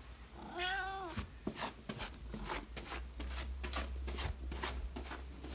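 Tabby cat giving one short meow that rises and falls, about half a second in, followed by a run of soft quick clicks, about four a second.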